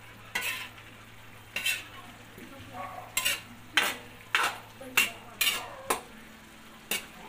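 A spoon stirring chunks of chicken and vegetables in a pan, knocking and scraping against the pan about nine times at uneven intervals, over a faint steady sizzle of the simmering stew.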